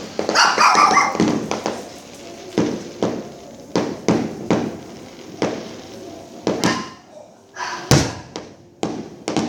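Dogs barking in short sharp bursts among irregular bangs of fireworks, with one deep boom near the end; the dogs are agitated and frightened by the fireworks.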